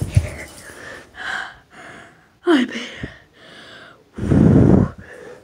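A child breathing hard and gasping after running, in irregular breaths. There is a short squeal dropping in pitch midway, and near the end a loud breath straight into the phone's microphone.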